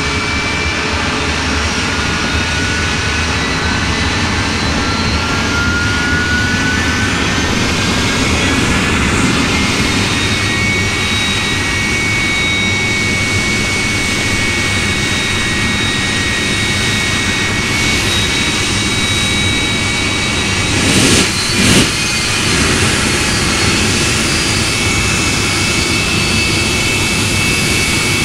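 Jet truck's turbojet engine running while parked: a steady loud rush with high turbine whines, one rising a little early on. Two sharp bangs come close together about three quarters of the way through.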